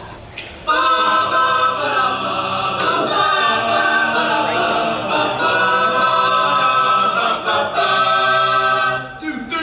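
All-male a cappella group singing held chords in close harmony, starting about a second in and breaking off near the end.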